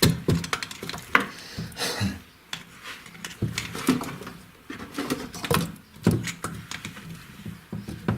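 Irregular metal clicks, knocks and scrapes of a screwdriver levering a camshaft back and forth in its bearings in the cylinder head. The shaft has more than half a millimetre of axial play.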